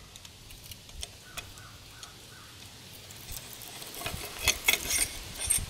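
Allen wrench working the bolts of a bicycle's handlebar stem clamp: faint scattered clicks at first, then a quick run of sharp metal clicks and clinks about four seconds in as the bolts come loose.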